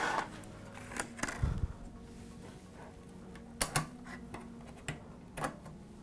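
Scattered light clicks and taps, with one low thump about one and a half seconds in, from handling the Synology DS918+ NAS's metal drive cage and unclipping a RAM module from its slot.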